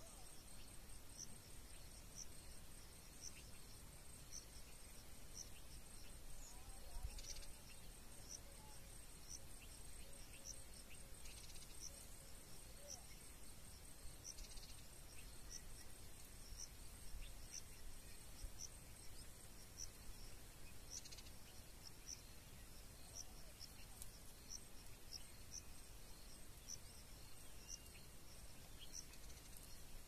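Faint evening insect chorus: a steady high trill with a short high chirp repeating evenly about one and a half times a second, the trill dropping out about two-thirds of the way through.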